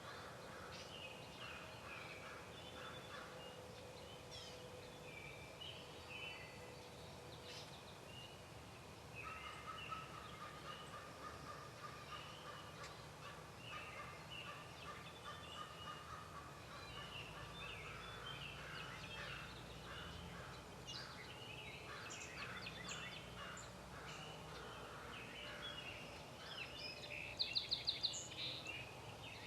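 Birds calling: many short chattering calls overlapping, busier from about nine seconds in, with a quick run of five sharp, loud notes near the end.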